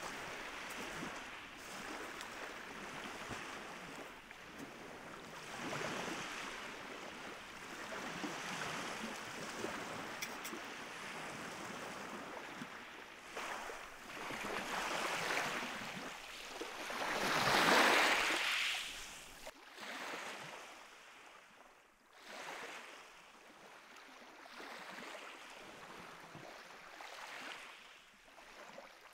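Lake waves breaking and washing in, swelling and ebbing every few seconds, with the biggest surge about two-thirds of the way through.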